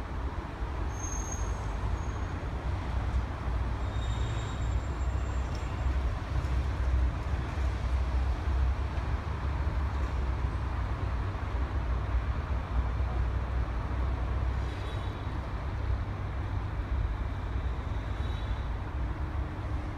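Steady city road traffic noise: a continuous low rumble of passing vehicles and engines, with a few faint high squeals along the way.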